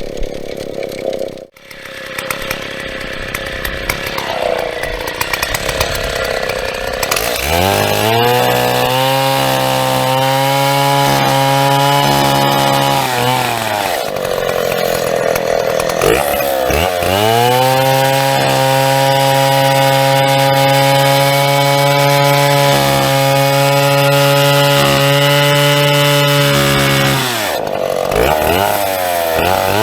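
Big vintage Stihl two-stroke chainsaw cutting through a birch log, held at high revs under load. The engine note falls away twice and climbs back as the saw is eased off and pulled back into the cut.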